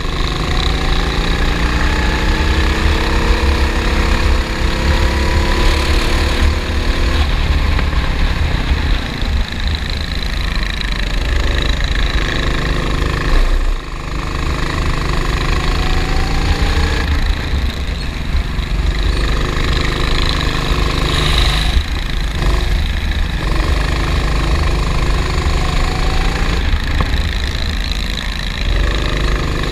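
Racing kart engine heard from the onboard camera, at full throttle on the straights with its pitch climbing for several seconds, then dropping sharply as the throttle is lifted for corners, over a heavy low rumble.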